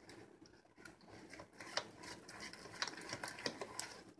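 Silicone spatula stirring a runny mix of eggs, sugar and oil in a mixing bowl: soft, irregular clicks and taps of the spatula against the bowl, sparse in the first second or two, then more frequent.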